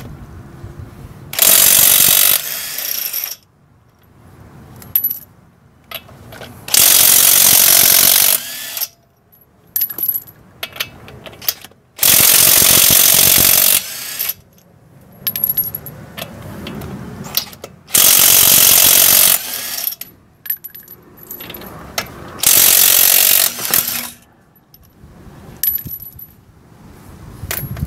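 Cordless impact wrench hammering the lug nuts off a car wheel, one nut at a time: five loud bursts of one to two seconds each, spaced about five seconds apart. Light metallic clinks fall between the bursts.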